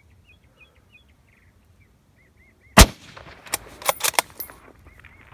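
Bolt-action rifle firing a single shot about three seconds in, followed by a quick run of metallic clicks as the bolt is worked to chamber the next round. Birds chirp repeatedly throughout.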